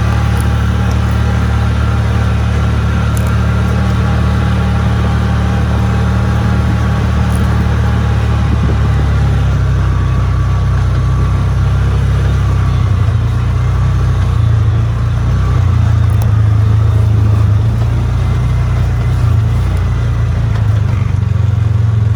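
A vehicle engine running steadily under way, its note shifting lower and then stronger about nine seconds in as the load changes.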